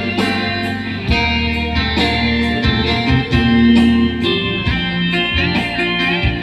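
Music led by an electric guitar, over a bass line and percussion.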